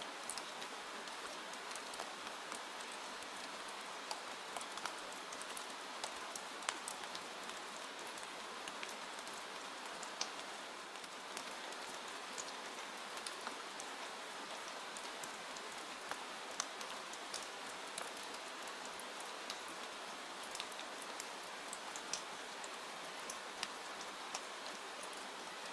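Steady rain falling on a window, a constant hiss with scattered sharp drop ticks.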